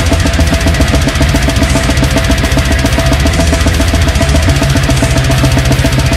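Brutal death metal: very fast, dense drumming over a low, sustained guitar and bass riff that changes about four and a half seconds in.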